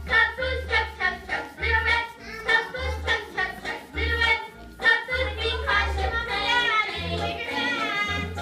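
Upbeat children's song playing: a sung melody over a bass line that pulses about once a second.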